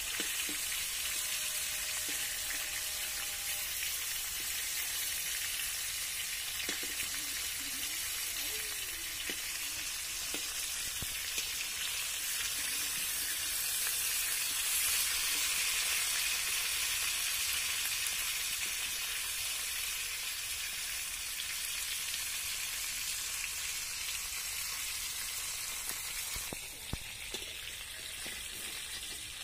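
Pangas fish pieces sizzling steadily as they fry in oil in an iron kadai, with a few light scrapes and taps of a metal spatula against the pan.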